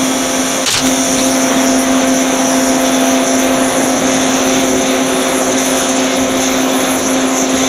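Oxy-fuel torch flame hissing steadily as it heats a steel tab, with a steady low hum underneath.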